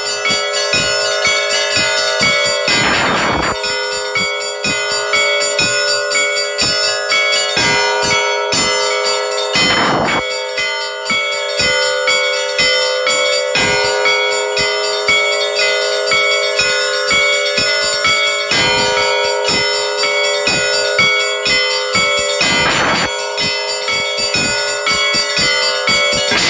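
Orthodox church bells ringing a continuous peal: smaller bells struck in quick, rhythmic patterns over their lingering ring, with a fuller, heavier stroke every several seconds.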